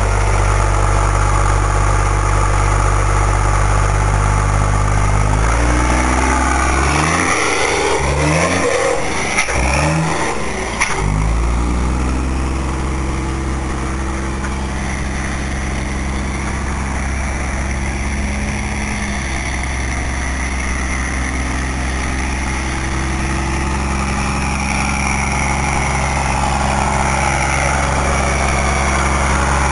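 VW 23-250E truck's diesel engine running steadily. A few seconds in, its pitch swings up and down several times in quick succession, with a couple of clicks, before settling back into a steady run.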